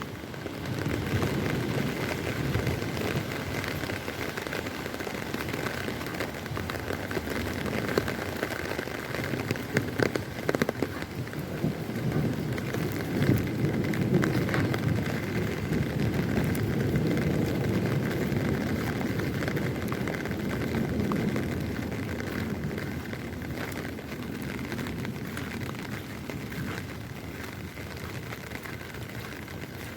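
Heavy rain falling steadily, with dense patter of drops on surfaces and into a puddle; the rain eases slightly toward the end.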